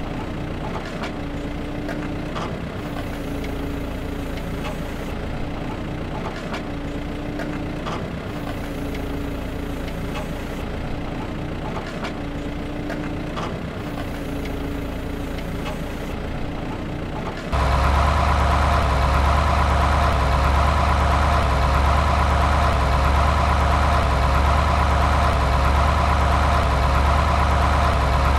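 Truck engine idling sound: a steady hum that swells about every second and a half, with scattered light clicks. About two-thirds through it cuts abruptly to a louder, deeper, steady idle.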